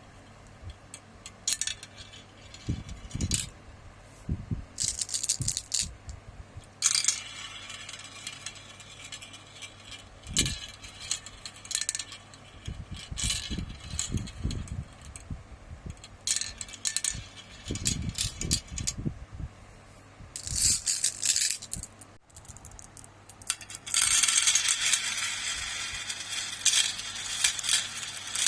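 Marbles rolling and clattering along a marble run track: irregular clicks and rattles with occasional low knocks, becoming a dense, continuous rattle near the end as many marbles run together.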